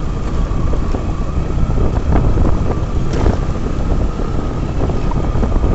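A vehicle driving along a road: a steady engine and road rumble, with wind buffeting the microphone.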